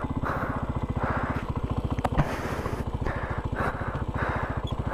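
Dirt bike engine running at a low, steady speed, its exhaust an even rapid putter with no revving. A single sharp click sounds about two seconds in.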